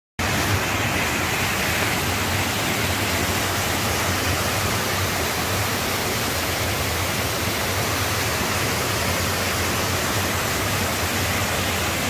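Mountain stream running over boulders in small cascades: a steady, unbroken rush of water.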